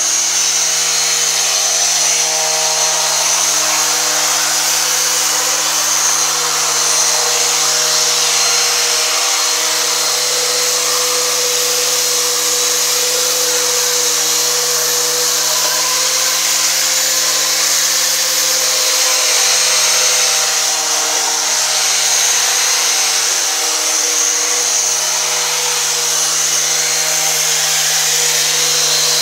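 Corded electric palm sander running steadily, its pad pressed against a wall to sand down dried wall putty.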